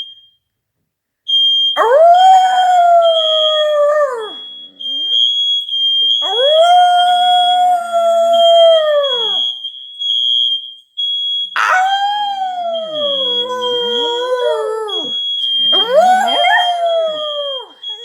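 Dog howling at a smoke alarm, four long howls that each hold their pitch and then drop away at the end. Under the howls the alarm keeps up a high-pitched beep in quick, nearly continuous pulses.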